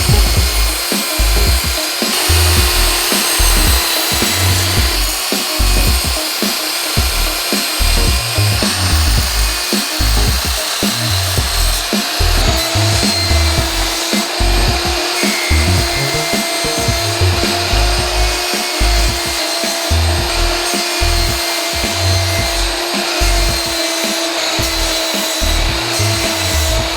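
Portable bandsaw sawmill sawing through an Eastern White Cedar log, running steadily with a continuous hum.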